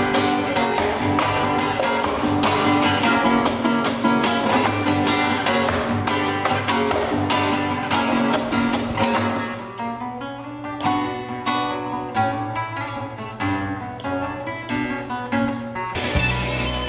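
Solo nylon-string classical guitar: fast, dense strumming for about the first nine seconds, then sparser picked notes. About a second before the end it cuts abruptly to a live band with electric guitar and a heavy low end.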